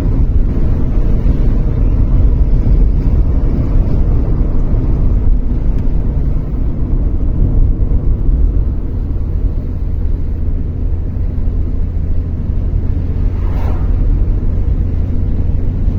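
A car driving, with a steady low rumble of engine and tyre noise on the road surface.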